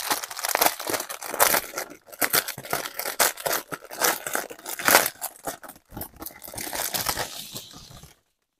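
Plastic packaging crinkling and rustling in the hands: a clear bag holding strip packets of diamond painting drills being handled and unwrapped, with dense irregular crackles that stop abruptly shortly before the end.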